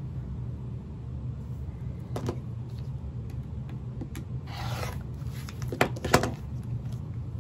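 A rotary cutter rolling through two layers of quilting fabric along an acrylic ruler on a cutting mat, a short rasp about halfway through. Two sharp clacks follow as the plastic ruler is shifted on the mat, over a steady low hum.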